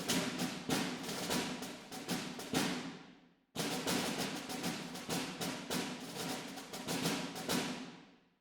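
Background music of rapid drum-like percussion, about five strikes a second. It fades out just before halfway, stops for a moment, starts again, and fades out once more at the end.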